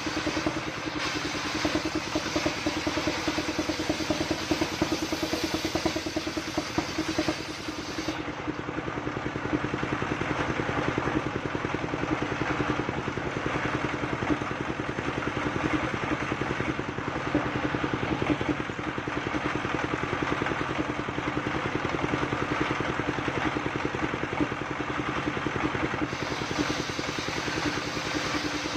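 Single-cylinder stationary diesel engine running steadily under load, driving a circular saw blade that rips coconut-trunk planks on a mobile sawmill.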